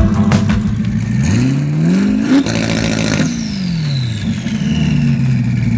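Twin-turbo 427-cubic-inch LT2 V8 with Garrett G35-900 turbos, idling, then a single throttle blip. The revs climb for about a second, fall back over the next two, and settle to idle. As the revs drop, a high turbo whistle winds down in pitch.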